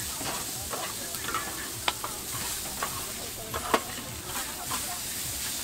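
Noodles sizzling on a hot flat griddle as two metal spatulas scrape, turn and toss them. Scattered clinks of metal on the griddle, with two sharp louder strikes, one about two seconds in and one near four seconds.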